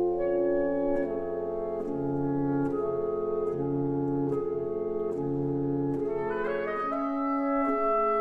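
Reed quintet of oboe, clarinet, saxophone, bass clarinet and bassoon playing held chords over a repeating low figure. The harmony shifts near the end.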